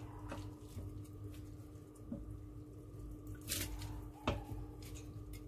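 Chopsticks stirring rice vermicelli soaking in hot water in a stainless steel bowl: soft wet swishing, with a few sharp clicks of the chopsticks against the bowl.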